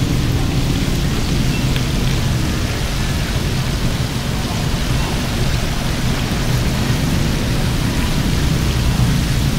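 Chicken skin deep-frying in hot oil: a steady sizzle with faint scattered crackles, over a steady low hum.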